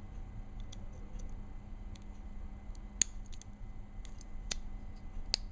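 Small metal clicks and taps of Glock pistol parts being handled and fitted back together, with a sharp click about three seconds in and another near the end.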